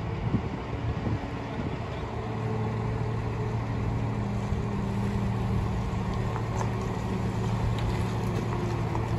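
Wheel loader's diesel engine running steadily as it carries a wrecked pickup truck on its forks. A low, even hum that gets a little louder a couple of seconds in.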